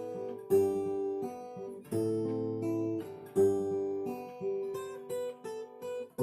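Acoustic guitar music: chords struck about once a second and left to ring.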